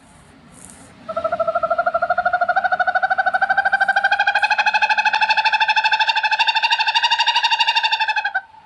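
An owl calling: one long, rapid trill of even pulses that begins about a second in, rises slightly in pitch, and stops abruptly after about seven seconds.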